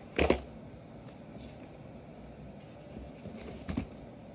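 Trading-card boxes and packaging being handled: a short loud rustle and knock just after the start, then a few small knocks and scrapes about three and a half seconds in.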